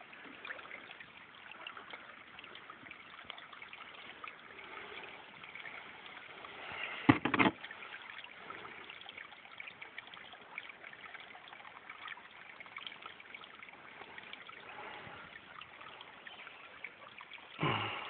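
Faint, steady trickling of water, with a brief loud knock about seven seconds in.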